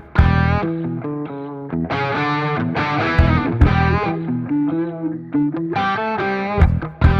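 Rock music with distorted electric guitar over a steady drum beat.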